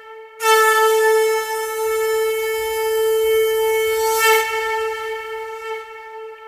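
Conch shell (shankha) blown in one long blast on a single held note. It starts sharply about half a second in, swells again near four seconds and fades near the end.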